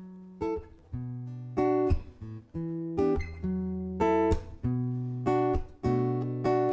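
Guitar chords played in a slow, even rhythm, each left to ring: the instrumental opening of a song, before the singing starts.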